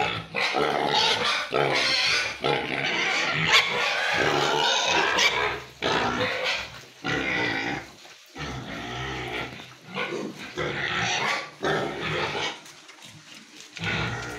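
Hungry domestic pigs squealing and grunting in loud bouts, longest and loudest in the first six seconds, then in shorter bursts with brief pauses.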